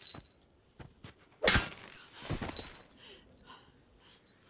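Two heavy crashing impacts, as in a film fight. A sudden loud one comes about a second and a half in and rings on briefly, and a smaller one follows under a second later.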